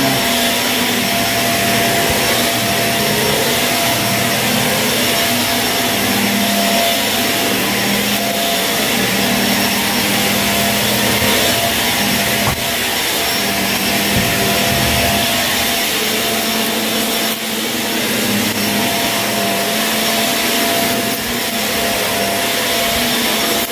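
Shark vacuum cleaner running steadily over a dirty carpet, its motor giving a constant loud whine.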